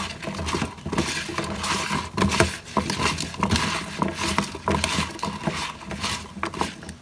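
Hands rubbing and squeezing salted bitter melon slices against a plastic basin, working the salt in to take out the bitterness: many irregular quick taps and scrapes.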